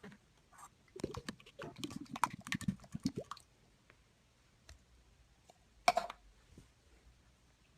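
Slime being squished and pressed by hand: a run of small wet clicks and squelches lasting about two and a half seconds, then scattered faint ticks and one louder squelch about six seconds in.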